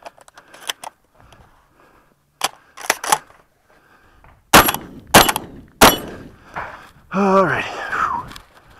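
Stoeger M3K 12-gauge semi-automatic shotgun fired three times in quick succession, about two-thirds of a second apart, at steel targets. A few quieter sharp clacks come a second or two before the shots, and a short call with a falling pitch follows near the end.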